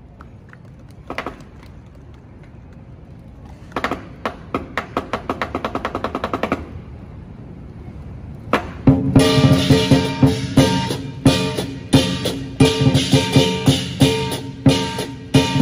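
Lion dance drum and cymbals. A lone strike comes about a second in, then a quick, even run of strikes, a short pause, and about nine seconds in the full drum-and-cymbal beat comes in loud and keeps going.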